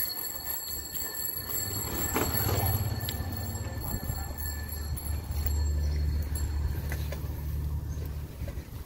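Low, steady rumble of wind and road noise on the microphone of a phone carried on a moving bicycle, heaviest in the second half. A faint steady high whine runs under it and stops about two-thirds of the way through.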